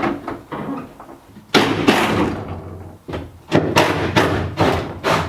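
A run of knocks and clunks from hands working on a car's boot lock and boot fittings, with a longer scraping rattle about a second and a half in.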